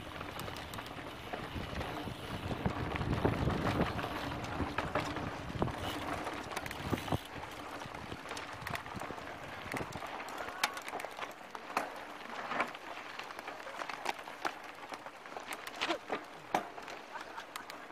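Mountain bike descending a dirt trail: tyres crunching over dirt and loose stones, with scattered clicks and knocks as the bike rattles over bumps. Wind rumbles on the microphone for a few seconds, from about two seconds in.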